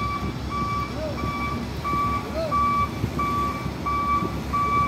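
A cargo truck's reversing alarm beeps steadily, about three beeps every two seconds, as the truck backs onto a landing-craft ferry ramp. Diesel engine rumble runs beneath it.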